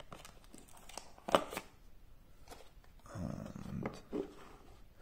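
A Xiaomi Redmi Note 10 Pro smartphone being lowered carefully into its cardboard retail box: a sharp tap about a second and a half in as it meets the box, a second lighter click right after, then soft rubbing and a couple of small knocks as it settles and the hands let go.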